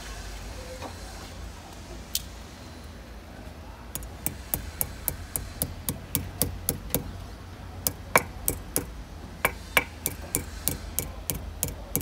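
Ball-peen hammer tapping down the ears of a steel band buckle to lock the band: one sharp tap about two seconds in, then from about four seconds a quick run of sharp metallic taps, about three a second, with a brief pause midway.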